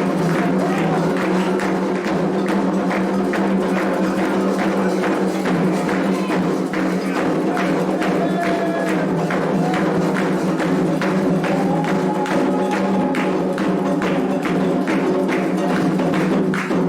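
Candomblé toque for Ossain: atabaque hand drums and percussion beating a steady, even rhythm under sustained group singing.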